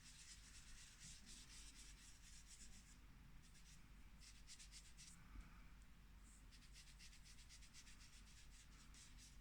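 Faint, rapid scratchy rubbing of an ink-blending tool worked in small circles over cardstock, the strokes coming in runs with a couple of brief pauses.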